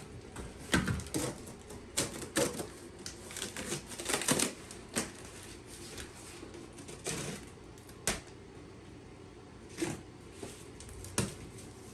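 Cardboard shipping box and its packing being handled and opened: irregular rustles, scrapes and sharp knocks at uneven intervals.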